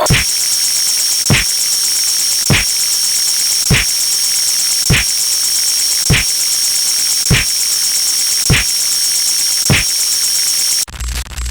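Loud harsh static-like noise effect with a hissy top, punctuated by a short thump about every 1.2 seconds; near the end it breaks into choppy, stuttering static.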